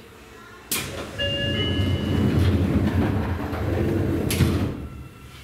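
Sliding doors of a Seibu 9000 series commuter train closing. A sharp hiss of air comes about a second in, then a low rumble as the doors run with a few short beeping tones, and a sharp thud near the end as they shut.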